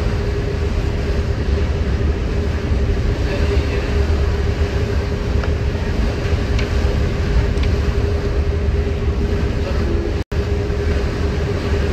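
Passenger ferry's engine droning steadily, with a constant hum over a low rumble and the wash of the water. The sound cuts out for a split second about ten seconds in.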